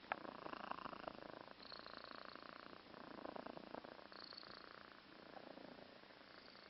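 A cat snoring: faint rattling breaths that come in stretches of about a second with short pauses between them. A short sharp click comes right at the start.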